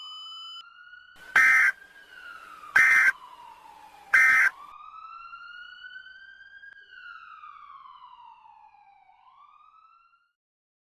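Police siren wailing in a slow fall and rise that fades out near the end. Three short, loud, harsh digital bursts cut across it about a second and a half apart: the Emergency Alert System end-of-message data bursts that close the warning. A steady tone cuts off just after the start.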